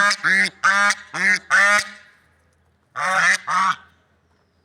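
Swans honking: five short nasal honks in quick succession, then a pause and two more honks about three seconds in.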